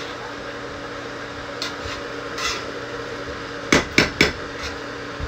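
Metal spoon stirring rice in a large metal pan: soft scrapes, then three quick, loud knocks of the spoon against the pan about four seconds in, and a lighter one after.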